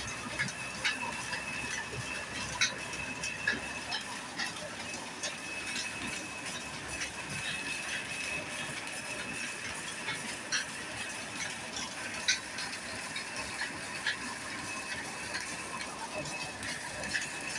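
Mustard oil screw expeller running steadily: a constant high whine under a mechanical drone, with irregular sharp clicks and knocks from the press.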